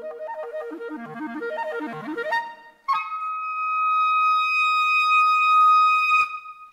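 Solo clarinet: a fast run of low notes sweeps upward in a glide into one loud, high note held for about three and a half seconds, which stops sharply near the end.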